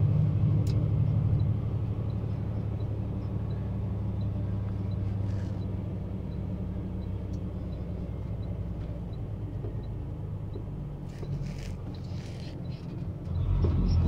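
Semi-truck's diesel engine heard from inside the cab, running low and easing off as the truck slows, then pulling harder again near the end. A turn signal ticks steadily, a little under two clicks a second, through most of it.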